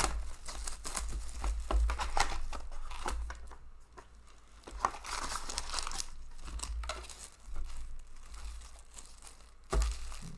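Plastic shrink-wrap crinkling and tearing as a sealed box of SPX hockey cards is unwrapped and opened, then foil card packs crinkling as they are lifted out. A quieter moment about four seconds in ends with a sharp click.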